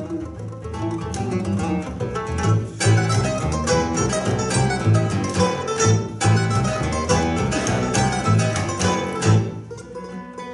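Acoustic trio of classical guitar, mandolin and double bass playing, the bass plucked in a steady pulse under the strummed and picked strings. The music drops to a quieter passage about a second before the end.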